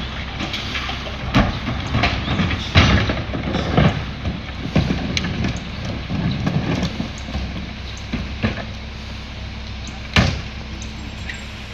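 Mack LE rear-loader garbage truck's diesel engine idling, with repeated sharp knocks and clatter as plastic recycling carts are rolled over pavement and tipped into the rear hopper, their lids and bodies banging.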